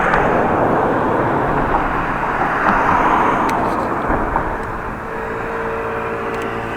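Road traffic passing: a steady rush of vehicle noise that swells about three seconds in, then a steady engine hum from about five seconds in.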